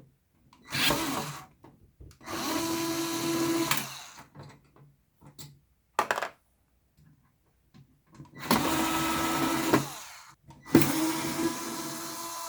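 Worx WX240 4-volt cordless screwdriver running in four short bursts of one to two seconds each, a steady motor whine as it turns screws, with a few light clicks between runs.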